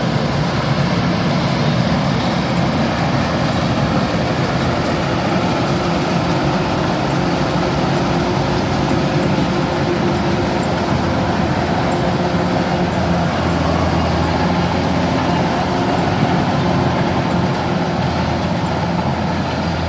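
Kubota DC-105X rice combine harvester running steadily at working speed: a continuous engine drone mixed with the noise of its cutting and threshing machinery. Its low hum grows stronger about two-thirds of the way through.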